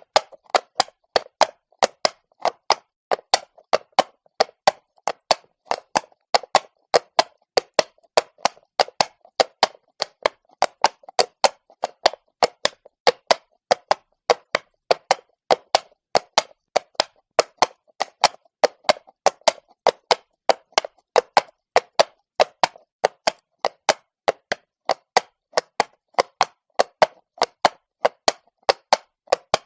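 Horse walking on cobblestones: a steady, even clip-clop of hooves striking stone, about three to four hoofbeats a second.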